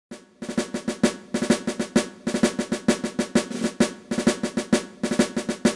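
Drum-led intro music: fast snare and drum hits at an even beat over a held low note.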